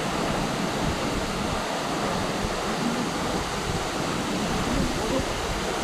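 Waterfall rushing, a steady even noise of falling water. The flow is reduced by late-summer low water.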